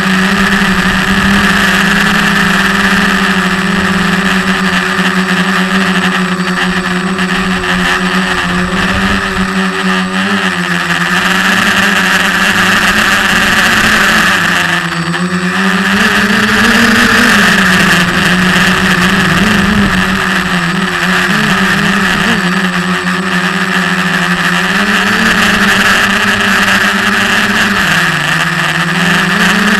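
Quadcopter's electric motors and propellers buzzing, heard from a camera mounted on the frame. The pitch wavers up and down with the throttle, dipping and rising again about halfway through and once more near the end.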